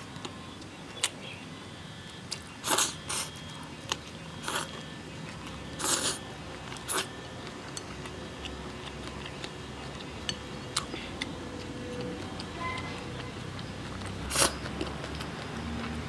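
Someone eating: wet chewing and lip-smacking noises come in short bursts, a handful of times, the loudest near the end. Faint background music runs underneath.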